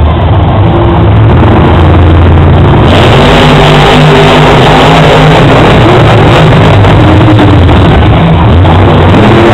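Monster truck engines, supercharged V8s, revving and running at full throttle, very loud. The sound grows fuller about three seconds in.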